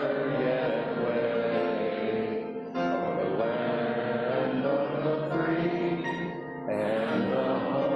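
A choir singing with musical accompaniment in long held phrases, with short breaks between phrases about three and six and a half seconds in.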